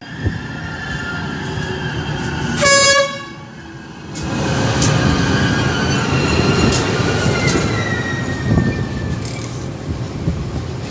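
A train horn gives one short toot about three seconds in, over the rumble of a passenger train on the rails. From about four seconds the rumble and wheel clatter grow louder as rolling stock passes.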